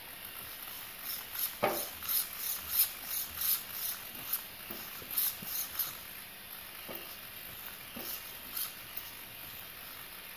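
Steering servo of a Team Magic B8ER 1/8 electric buggy whirring in many short bursts as the SVC stability system steers the front wheels. The bursts come quickly through the first half and more sparsely after.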